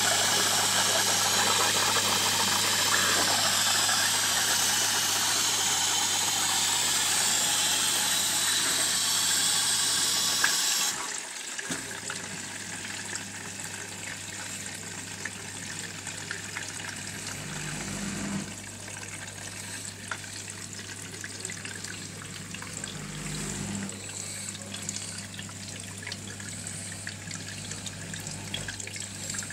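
Arçelik 4440 dishwasher running with a steady low hum and loud rushing water for about eleven seconds. The rush stops abruptly, leaving quieter trickling and dripping over the hum. This is the behaviour the owner traced to a faulty circulation motor, which replacing the motor cured.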